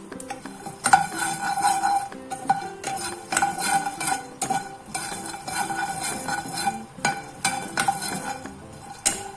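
Spatula stirring peanuts and chana dal as they dry-roast in a nonstick pan: a run of irregular scrapes and rattles that starts about a second in, over soft background music.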